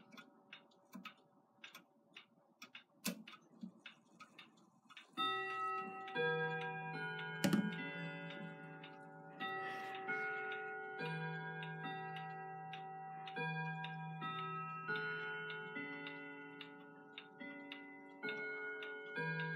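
Colonial grandmother clock ticking with scattered clicks. About five seconds in, its hour chime starts: a melody of ringing notes, each one sustained as the next sounds. A sharp knock comes a couple of seconds after the chime begins.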